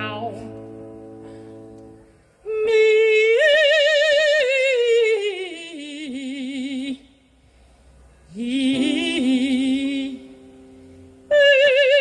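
Female operatic voices singing with wide vibrato over a digital stage piano. A piano chord dies away at the start, then come three long sung phrases with short breaks between them. The first climbs and then slides slowly down in pitch.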